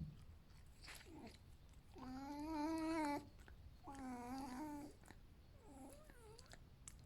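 Pet fox giving its drawn-out, wavering "wow" calls: two long calls about two and four seconds in, with shorter, softer ones around them.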